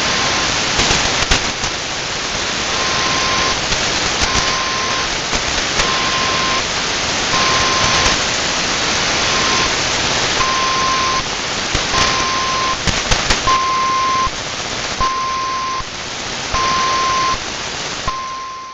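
Shortwave radio reception of 4185 kHz through a WebSDR receiver: loud static hiss with scattered crackles, and an unidentified signal heard as a steady mid-pitched beep, each beep under a second long, repeating about every second and a half. The audio fades out at the very end.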